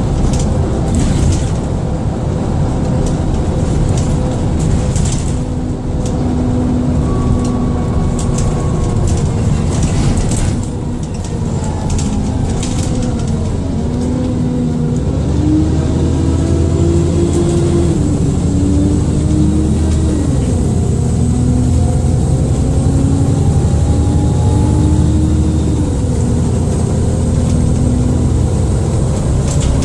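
Alexander Dennis Enviro400 double-decker bus with a Dennis Trident II chassis, heard on board while it drives. The engine note steps up and down with changing speed and gear changes from about halfway through, under a thin high turbo whine and scattered rattles.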